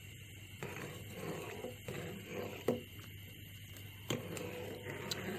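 Ladle stirring a hot milk-and-gelatin mixture in a metal pot, with two faint knocks of the ladle against the pot, one near the middle and one later, over a low steady hum.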